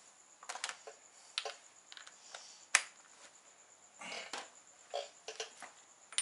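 Scattered metallic clicks and clinks of hand tools being handled, a socket being fitted to a breaker bar, with one sharper click about three seconds in.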